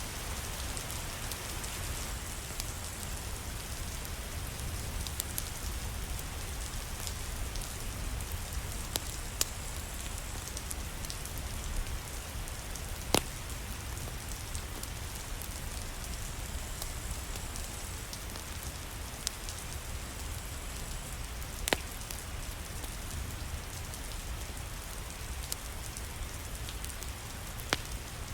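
Steady rain falling, a dense even patter, with scattered sharp clicks and pops, a few of them clearly louder than the rest.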